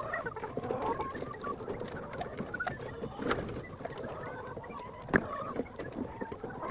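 A flock of laying hens murmuring and clucking softly close by, with a few sharp clicks of eggs being set into plastic egg flats, the loudest about five seconds in.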